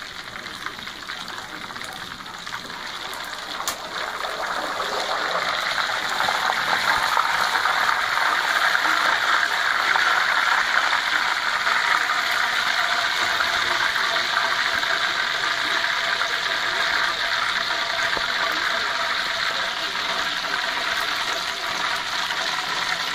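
Hot cooking oil sizzling and bubbling in a wok as a whole deep-fried chicken is lifted out with a wire strainer: a steady hiss that swells about five seconds in.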